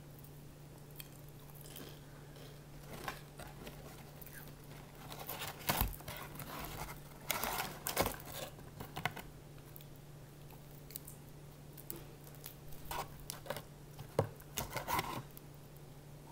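Crispy fried chicken being chewed and pulled apart by hand, in scattered crunches and crackles of the breaded skin over a steady low hum.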